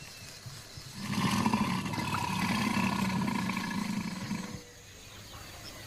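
Saltwater crocodile growling: one deep, rough call starting about a second in and lasting about three and a half seconds.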